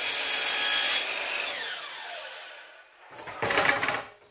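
DeWalt miter saw cutting a sliver off the edge of a cedar board, the cut ending about a second in, after which the blade's whine falls as it spins down. Near the end, a short scrape as the board is slid along the saw's table.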